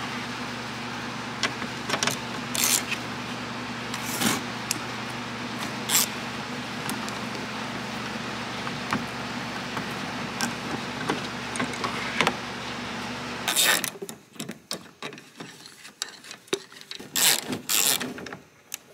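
Occasional sharp metallic clicks and clinks of a nut driver working the bolts of a car's hood safety latch, over a steady low hum. The hum cuts out about two-thirds of the way through, leaving scattered clicks and handling knocks.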